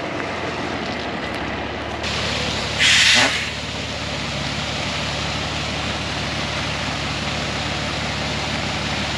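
Old Ford water truck's engine running steadily while its rear sprayer pours water onto the gravel road in a steady rushing splash. A loud hiss lasting about half a second comes about three seconds in.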